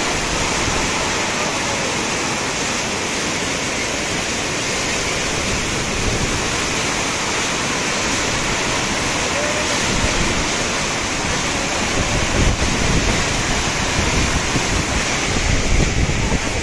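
Steady rush of a swollen, muddy river in flood, churning fast beneath a bridge. From about twelve seconds in, irregular low rumbling bumps are heard under it.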